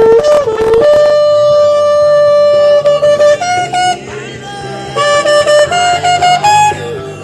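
Shofar (ram's horn) blown in loud blasts: a held note that jumps up in pitch about a second in and holds, then runs of short broken notes and a higher note near the end.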